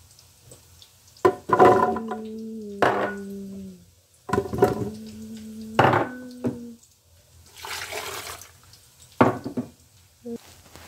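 Tomatoes and carrot slices dropped into a plastic blender jar: about five knocks, several followed by a short ringing tone from the jar, then a brief splash of water poured in about eight seconds in, and a couple of light clicks near the end.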